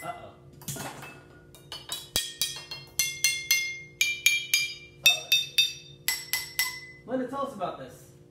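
Drinking glasses of coloured water struck with a beater in a quick rhythmic tune, each strike ringing at one of several pitches. A voice speaks briefly near the end.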